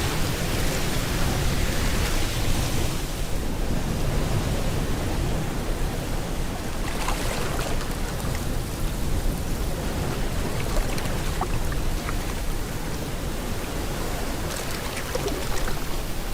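Rain mixed with ocean waves washing on a shore, a steady hiss with slow swells as waves break.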